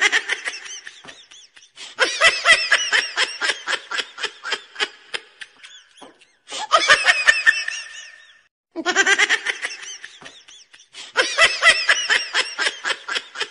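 High-pitched laughter in quick ha-ha pulses, laid on as a comedy laugh effect: several stretches that start and stop abruptly, with short silent gaps between them.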